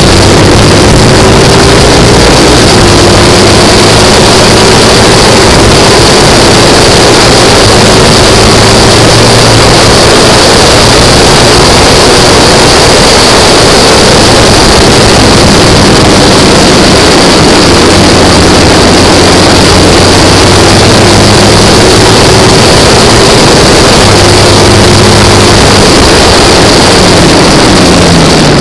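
Classic racing sidecar's engine running hard at racing speed, a loud continuous roar heard from close to the machine. The revs shift slowly and drop near the end.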